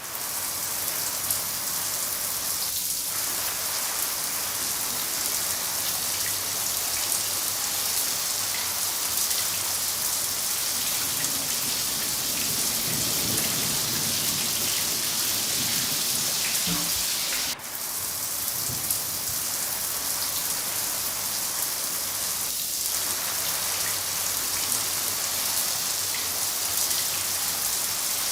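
Steady rain falling, an even hiss of drops on a surface, which drops out for an instant about two-thirds of the way through.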